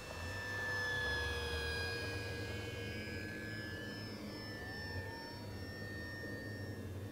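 Electric motor and propeller of an E-flite 1.2 m P-51D Mustang RC warbird whining as it passes low and climbs away. It is loudest about a second in, the pitch sagging slightly as it goes by, then holds a steady whine.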